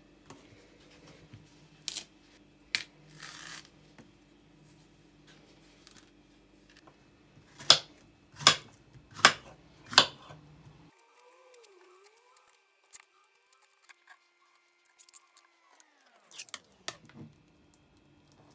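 Kitchen knife slicing through a peeled banana onto a wooden chopping board: four sharp knocks about a second apart, after a few lighter clicks and a short rustle. Near the end, a fork clicking against a bowl as bananas are mashed.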